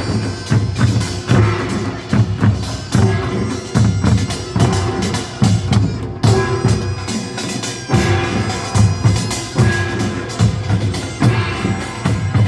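Gyeongsang-do nongak, a Korean farmers' percussion band, playing: drums beat a steady driving rhythm of loud strokes with lighter beats between, and metal gongs ring over them.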